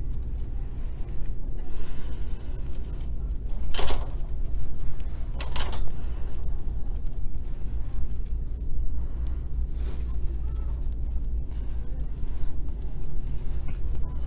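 Plastic shopping cart being pushed across a store floor: a steady low rumble of the wheels, with a sharp rattle about four seconds in and a quick double clatter a second and a half later.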